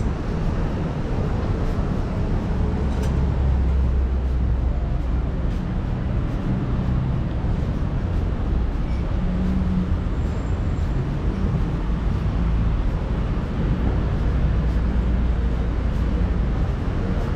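City street ambience: a steady low rumble of motor traffic, swelling twice, as a vehicle passes or idles close by.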